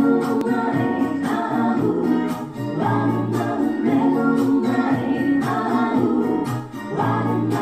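Background music with a steady beat: the opening of a Russian-language song, before its first sung line.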